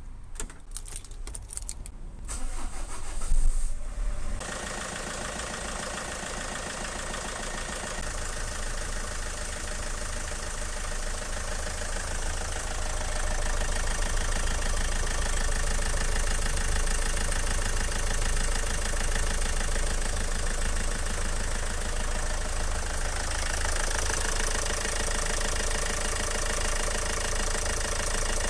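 Vauxhall Movano 2.2 DTi diesel engine cranked and catching about four seconds in, after a few knocks and clicks, then idling steadily. The idle grows somewhat louder later on.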